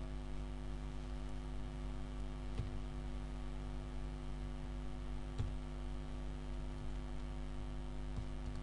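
Steady electrical mains hum with its stack of overtones, broken by a few faint keyboard clicks as the computer is typed on.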